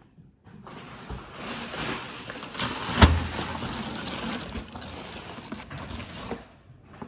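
Rustling, crinkling plastic shrink-wrap and one heavy thud about three seconds in, as a case of bottled water is set down on a kitchen counter.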